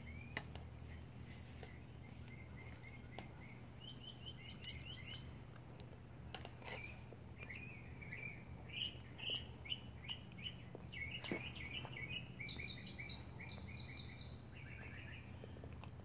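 Small songbirds singing: runs of quick repeated chirps and short trills, busiest through the middle, with a couple of sharp clicks, over a faint steady low hum.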